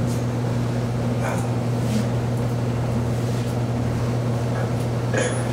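Spirit box sweeping through radio stations: steady static over a low hum, broken by a few brief blips of sound, while waiting for an answer to a question.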